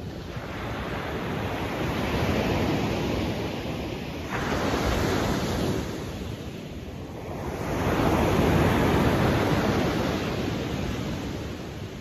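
Ocean waves breaking on a beach and washing up the shore in repeated swells. One wave comes in suddenly about four seconds in, and a bigger, louder one follows a few seconds later.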